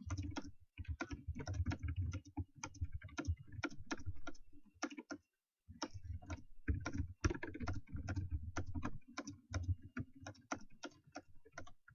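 Fast typing on a computer keyboard, a bit loud: a rapid, uneven run of keystrokes with a thud under each click. The typing breaks off for about half a second roughly five seconds in.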